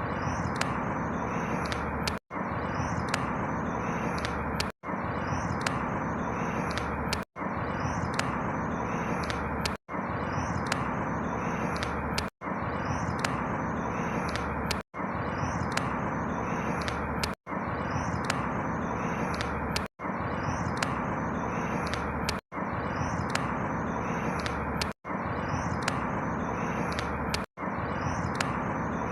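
A short outdoor ambience recording looped over and over: a steady rushing noise with faint high chirps, cutting out for an instant about every two and a half seconds as the loop restarts.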